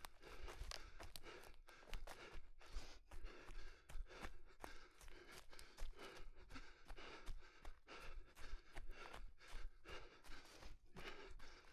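A runner breathing while running through forest, with footsteps and the rustle of undergrowth coming as irregular short noises.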